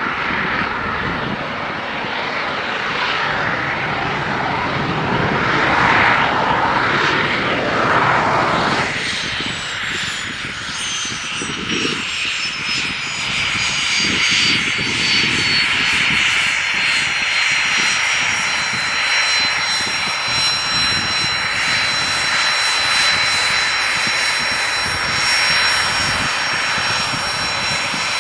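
Small twin-engine business jet's turbofans running as it rolls on the runway. A high-pitched whine drops in pitch about nine seconds in, then holds steady over a broad jet rush.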